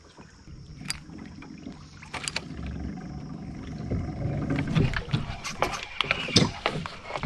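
Knocks, scrapes and light splashes of a small fishing skiff pushing in among mangrove branches. The knocks come more often and louder in the second half.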